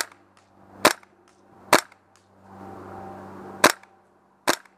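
WE ACR gas blowback airsoft rifle, running on propane, firing five sharp single shots. The first three come a little under a second apart, then there is a pause of about two seconds before the last two.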